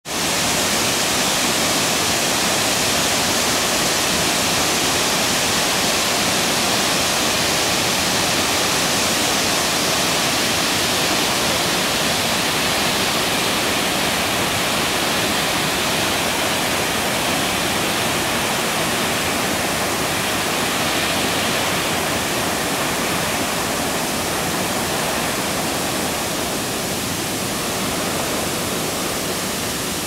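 Wide waterfall pouring heavily over a rock ledge into a river: a steady, loud rush of falling water.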